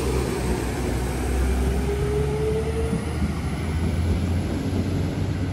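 Class 195 diesel multiple unit pulling away, its engines running under a steady rumble with a whine that dips in pitch and fades out about three seconds in.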